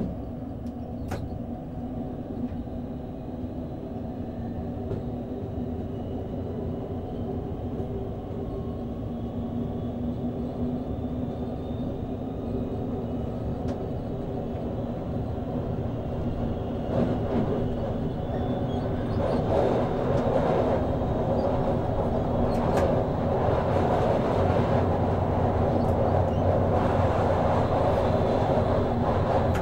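Hamburg S-Bahn electric train running at speed, heard from the driver's cab: a steady hum of the traction equipment over wheel-and-rail noise. It grows louder about halfway through, with a few sharp clicks from the track.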